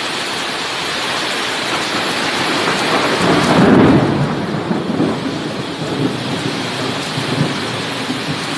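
Heavy torrential rain pouring down steadily, with a low rumble that swells about three to four seconds in.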